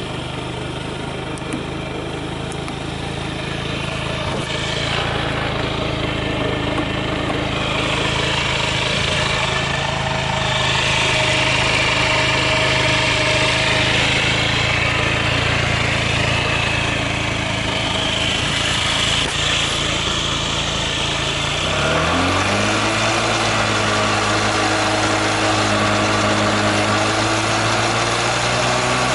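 Honda Zoomer AF58 scooter's carbureted single-cylinder four-stroke engine running steadily at idle. About three quarters of the way through, the engine speed rises smoothly and holds at a higher steady speed. The seller presents it as running without abnormal noise.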